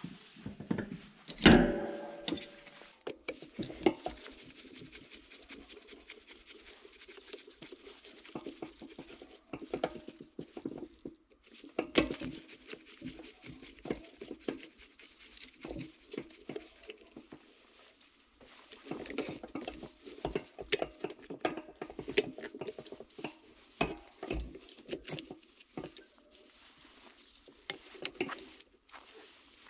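Metal alternator parts and hand tools clinking and knocking against each other and a work surface while the alternator is taken apart: scattered sharp clicks, with one louder knock about a second and a half in and busier stretches of handling later on.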